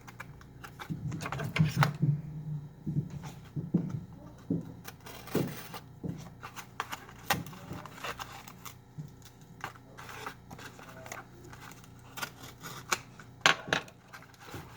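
Small plastic packaging being handled and cut open with a hobby knife: irregular clicks, scrapes and crinkles, a little busier in the first few seconds.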